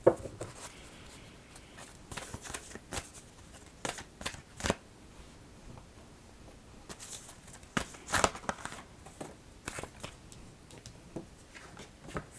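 Oracle cards being shuffled and handled: irregular sharp flicks and brief rustles of card stock, louder about four to five seconds in and again about eight seconds in.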